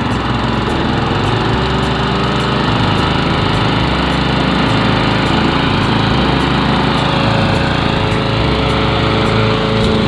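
Petrol walk-behind lawn mower running steadily at working speed while being pushed over grass, its small single-cylinder engine humming without a break.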